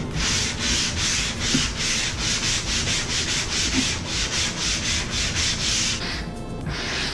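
Hand sanding sponge rubbed quickly back and forth over drywall, about four strokes a second. The strokes stop for a moment near the end, then one short last burst follows. This is the final sanding of a drywall repair before painting.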